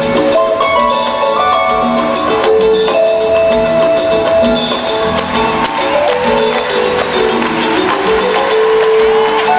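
Live band playing an instrumental passage of a pirekua, the Michoacán song form: a melody of held, stepping notes over steady hand-percussion taps, with no singing.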